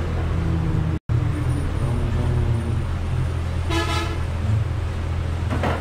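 A vehicle horn toots once, briefly, about four seconds in, over a steady low rumble of traffic. The audio drops out for a moment about a second in.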